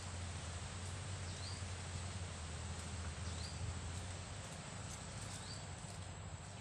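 Boiling water pouring in a steady stream from a thermos flask into a metal basin of instant noodles. A bird repeats a short rising chirp about every two seconds.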